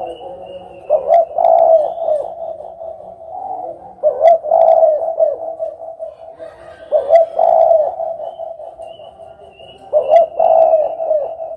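Spotted dove (derkuku) cooing: a low, multi-note coo phrase repeated about every three seconds, four times.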